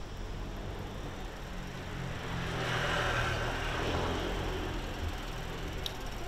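A car passing close by, its engine and tyre noise swelling to a peak about halfway through and then fading, with a short click near the end.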